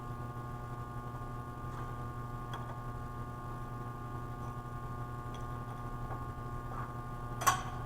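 Light handling clicks and taps of copper pipe and fittings, with one sharper, louder click near the end, over a steady hum.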